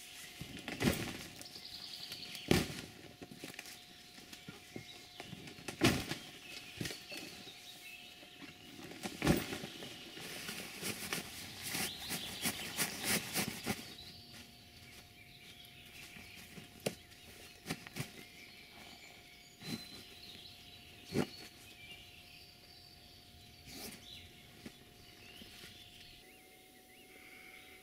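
Camouflage fabric ground blind being collapsed and packed up: fabric rustling with sharp knocks and snaps, most of them in the first half, with small birds chirping throughout.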